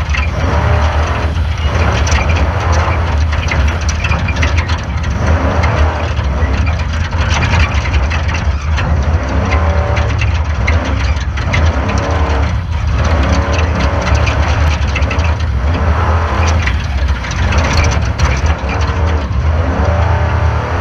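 Off-road race car running hard: a loud, continuous engine note whose revs rise and fall, with frequent knocks and rattles over it.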